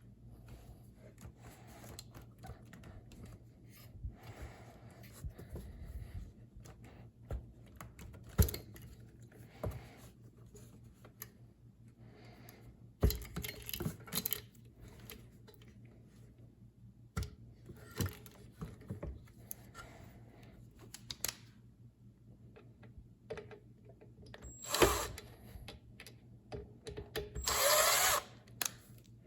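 Hand work on dishwasher parts: scattered clicks, knocks and clinks of tools and metal parts being handled, over a steady low hum. A short burst of a power drill comes near the end.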